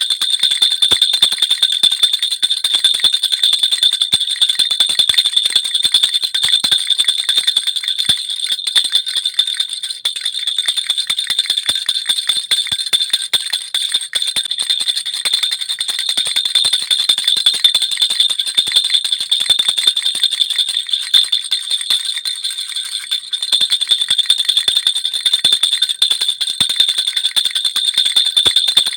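Baby rattle (jhunjhuna) shaken continuously: a dense, steady jingling of small bells with a bright ringing tone, easing slightly twice.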